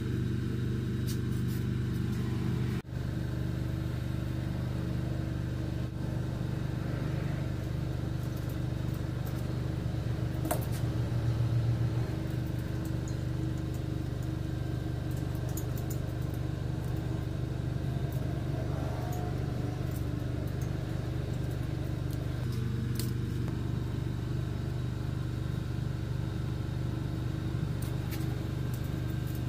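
A motor or engine running steadily, a low even drone, with scattered light clicks over it.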